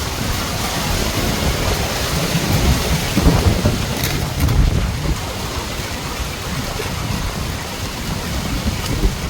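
Heavy rain driven by strong hurricane wind, the gusts buffeting the microphone with an uneven low rumble under the steady hiss of the rain.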